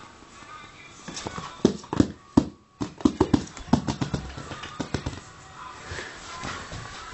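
A kitten's paws skittering and thumping on a laminate floor as it leaps away and runs, a quick irregular run of knocks bunched between about one and four and a half seconds in.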